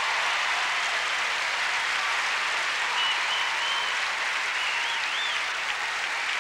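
Large audience applauding steadily, with a few brief high whistles over the clapping about halfway through.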